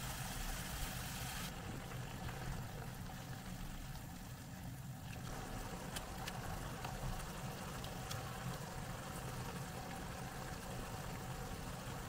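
Steady low rumble of stove-top cooking, with the pan of asparagus and spaghetti simmering on a gas burner. A few light clicks and taps come between about five and eight seconds in, as shrimp and scallops are set into the pan.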